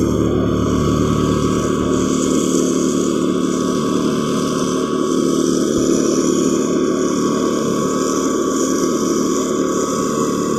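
Engine of a machine spreading fertiliser on the rice paddy, running loud and steady at an unchanging speed.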